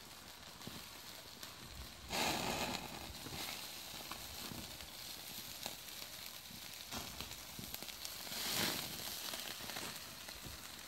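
Trout and zucchini sizzling on a grate over hot charcoal, a steady hiss with small crackles and two louder surges, about two seconds in and again around eight seconds in.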